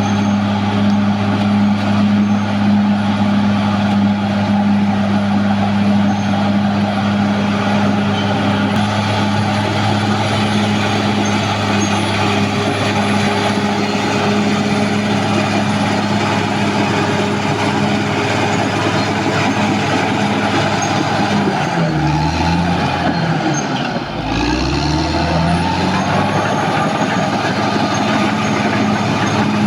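Caterpillar D6R XL bulldozer's diesel engine running hard and steadily. Near the end its pitch sags and recovers twice.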